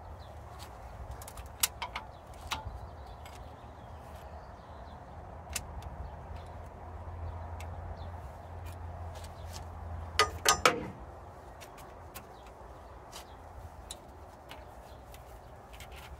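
Scattered metallic clicks and clinks from a wrench on the cam sprocket and the Ford V10's timing chain as the camshaft is turned slightly by hand to line up the timing marks. A louder quick clatter of metal comes about ten seconds in.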